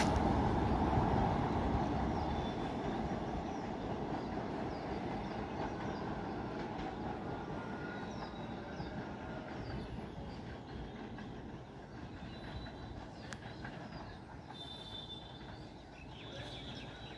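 Passenger express train running away down the line, the rumble of its wheels on the rails fading steadily into the distance. Birds chirp faintly in the later seconds.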